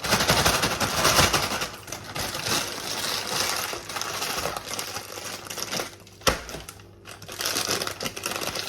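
Snack packet crinkling, dense crackling handled close to the microphone, with a single sharp click about six seconds in and a quieter moment just after.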